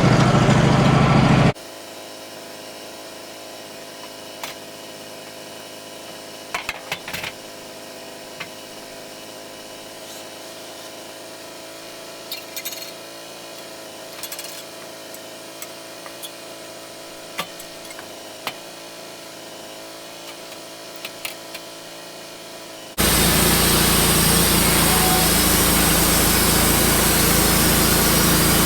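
Wood-Mizer LT15 portable sawmill running loud until about a second and a half in, then dropping suddenly to a much quieter steady hum with scattered light clicks and knocks. The loud saw sound starts again abruptly about 23 seconds in and runs on steadily.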